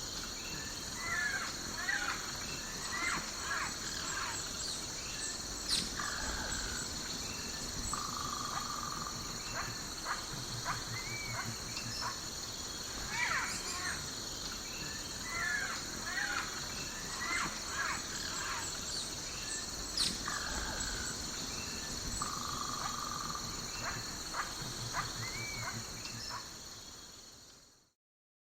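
Daytime tropical jungle ambience: many birds calling over a steady high drone of insects. It fades out near the end.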